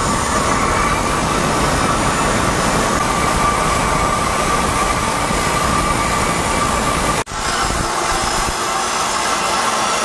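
Toyota Vios with a re-elbowed pipe and HKS exhaust, its engine and exhaust running steadily in a loud, even rumble. About seven seconds in the sound breaks off for an instant and resumes with less low rumble.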